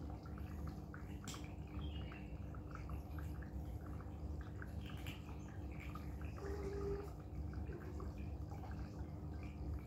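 Cats eating wet food from bowls: irregular small wet clicks and smacks of chewing and licking, over a steady low hum in the room.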